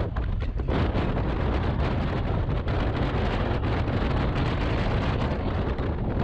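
Motorcycle being ridden at road speed: wind rushing over the microphone with the engine running underneath, easing briefly about half a second in.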